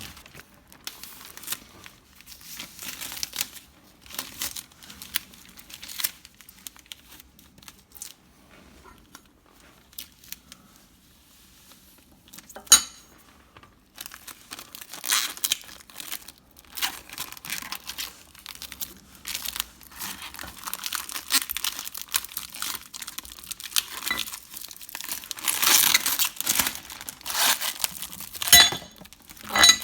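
Scratchy hand-rubbing strokes of an abrasive on metal, irregular. They are sparse and quiet at first and become denser and louder about halfway through, with a couple of sharp clicks.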